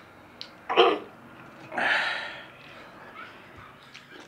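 A person coughing and clearing the throat while eating: a short sharp catch about a second in, then a longer, breathier one near two seconds.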